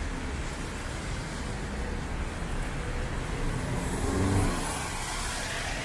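City traffic on a rain-wet street: cars driving by with tyres hissing on the wet pavement, and one vehicle passing close, getting louder about four seconds in.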